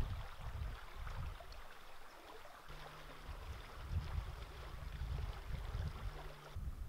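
Stream water running over a shallow stony bed, a steady hiss and burble, with gusts of wind buffeting the microphone. A faint steady low hum comes in a little under three seconds in and stops shortly before the end.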